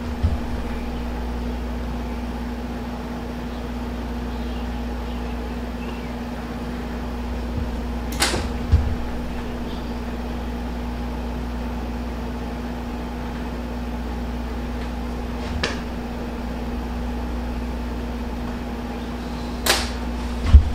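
Steady machine hum, like a shop fan or air conditioner running, with three short sharp clicks spread through it.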